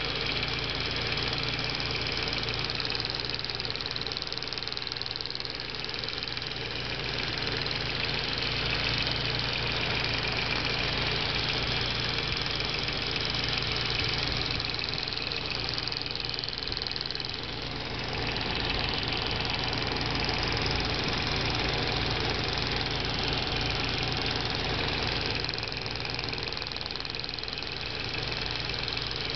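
Audi A4 B5 1.8T's turbocharged inline-four idling steadily, with a fast clicking from the evaporative emission purge valve over the engine sound.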